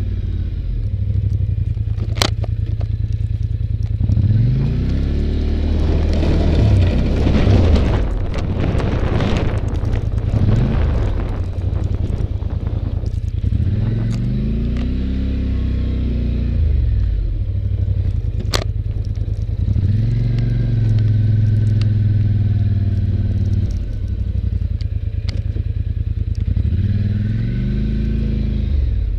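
Polaris Sportsman 850 ATV engine running under load while plowing snow, revving up and down several times, with a rougher, noisier stretch in the middle and two sharp clicks.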